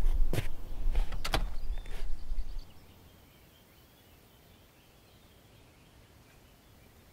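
A few sharp knocks and clicks over a low rumble, which stops suddenly about two and a half seconds in; then a faint outdoor hush.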